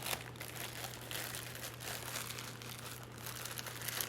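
Plastic packaging crinkling irregularly as it is handled, over a steady low hum.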